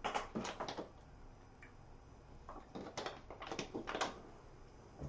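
Light clicks and knocks in two short clusters, one right at the start and another about three seconds in, like small objects being handled on a desk.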